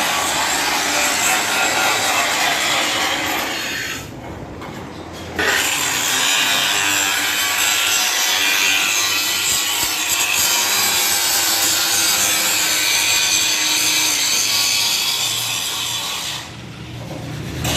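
Sheet-metal roofing machine running, with the metal sheet rubbing and scraping through it in a steady noisy run. It dips briefly twice, about four seconds in and near the end.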